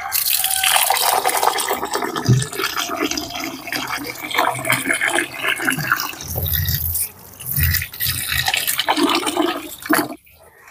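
Tap water pouring into a metal cooking pot while rice is rinsed in it by hand, splashing and swirling, with a few low thumps. It stops suddenly near the end.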